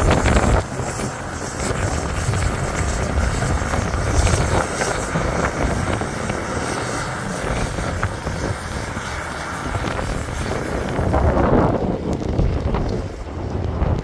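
Bobcat compact track loader running with its snowblower attachment throwing snow, under heavy blizzard wind buffeting the microphone in gusts. The sound changes about twelve seconds in, the highs dropping away.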